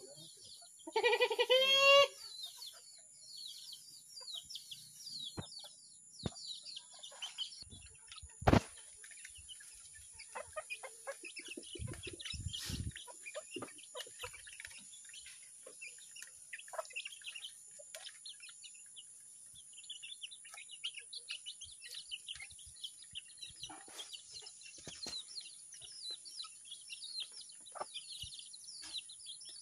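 Chickens: a loud call lasting about a second near the start, then many short, high chirps from feeding chicks running on throughout. A single sharp click comes near the middle.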